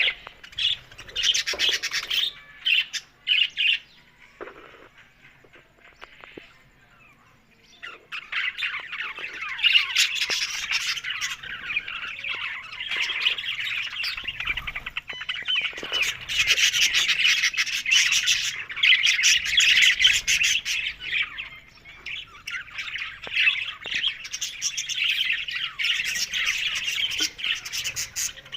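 Budgerigars chattering and warbling in fast, scratchy, high-pitched runs. After a few calls it drops almost to quiet for about four seconds, then resumes as dense, continuous chatter.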